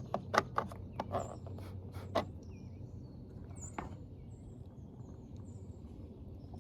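Hard plastic clicks and knocks, about eight in the first two seconds and one more near the middle, from handling and fitting the parts of a Hummer H2's roof marker light bar. Birds chirp faintly over a low steady hum.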